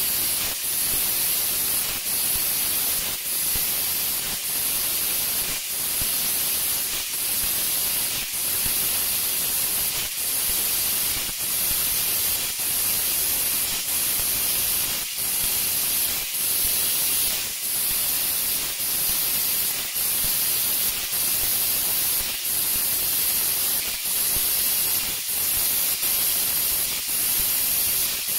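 Godworker 6080 mini fiber laser cutter cutting 1.2 mm copper sheet, with a steady hiss from the cutting head's assist gas. The hiss is broken by short gaps about every 0.7 seconds.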